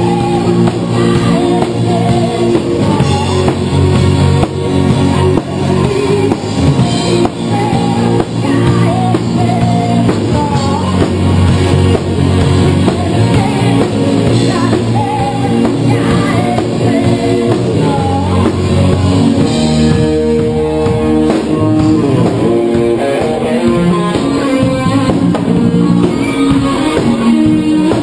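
A live rock band playing loud: drum kit, electric guitar and a lead singer.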